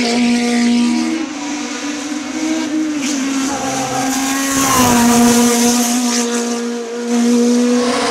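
Fiat X1/9 hill-climb racer with a mid-mounted 2.0-litre Alfa Romeo 155 STW engine running at high revs as it climbs through a hairpin. The engine note dips in the middle, then rises again as the car powers out of the turn, loudest about five seconds in as it passes close.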